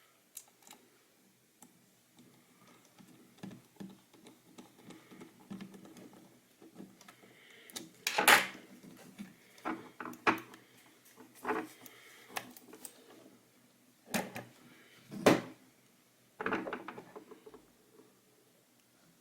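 Clicks and knocks of the plastic parts of a vertical computer mouse handled and pressed together during reassembly, irregular and scattered, with the sharpest knocks about eight and fifteen seconds in.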